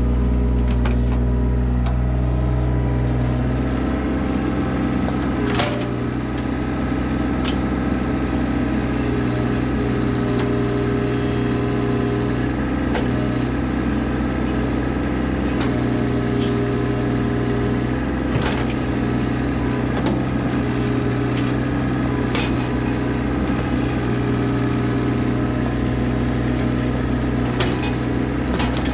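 Hitachi mini excavator's diesel engine running steadily while its hydraulic arm pushes the bucket against a poplar trunk. Scattered sharp knocks and cracks come through at irregular moments.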